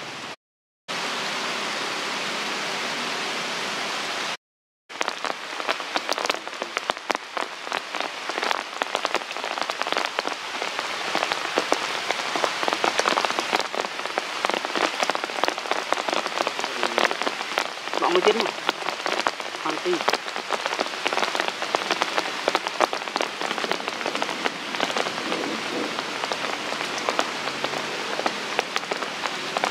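Steady rain falling and pattering on surfaces, with many drops ticking. The sound drops out twice briefly in the first five seconds.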